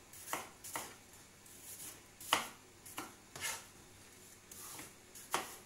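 Kitchen knife chopping peeled apple into dice on a cutting board: about half a dozen sharp knocks of the blade on the board at uneven intervals.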